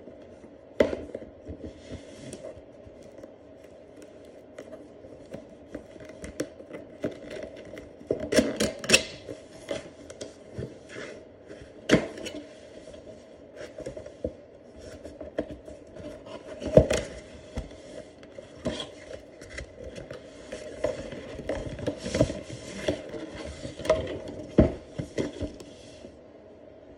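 Cardboard retail box of a Remington iLight IPL hair-removal device being handled and turned over by hand: irregular rubbing and scraping of cardboard with scattered sharp knocks and taps.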